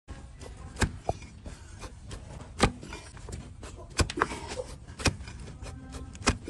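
Cleaver-like hoof-trimming blade cutting and paring a donkey's hoof. Six sharp cuts, irregularly spaced roughly a second apart.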